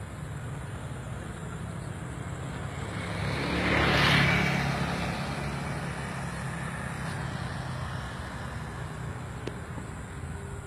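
A road vehicle passing close by: its noise swells to its loudest about four seconds in, then fades away over a steady low hum.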